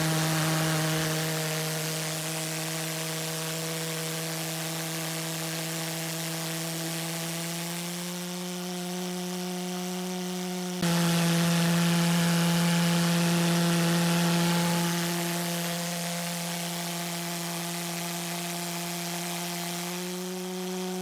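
Propane pulse jet burner, its barrel cut down to 17½ inches, running steadily with a loud buzzing drone of about 170 pulses a second, its pitch creeping slightly up over time. The sound jumps suddenly louder about 11 seconds in.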